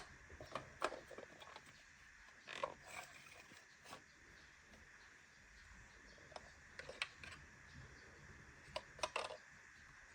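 Small plastic toy pieces being handled: scattered light clicks and taps with brief rustles, bunched in a few short spells.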